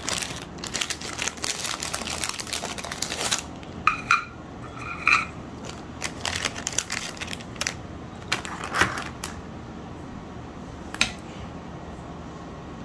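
Plastic cracker packet crinkling for about three seconds, then two short ringing clinks on a ceramic plate as round crackers are laid out, followed by a few light clicks and taps.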